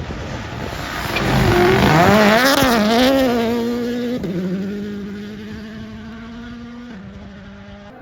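Rally car engine passing at speed. It comes in with the revs rising and falling sharply and is loudest about two seconds in. It then pulls away on a steadier note that drops in pitch twice, around four and seven seconds in, fading as it goes.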